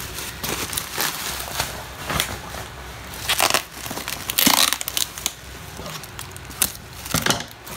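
Plastic bubble wrap crinkling and rustling with sharp crackles as it is pulled off a cardboard box, then packing tape being peeled from the cardboard, with a few louder rasping rips.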